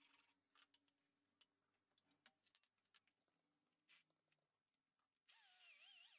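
Near silence with a few faint, scattered clicks. About five seconds in, background music with a sliding melody begins.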